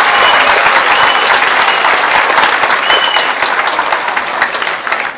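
Audience applauding, dense steady clapping that thins a little toward the end.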